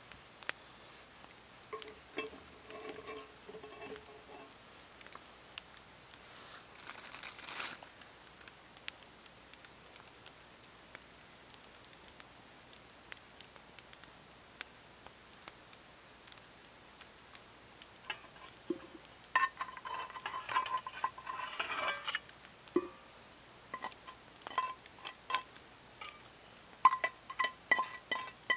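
Small-scale camp cooking with a frying pan of eggs on a pot stove: scattered light ticks and crackles, a plastic zip-top bag rustled about two-thirds of the way through, and a run of light metal clinks near the end as the pan is handled on the pot.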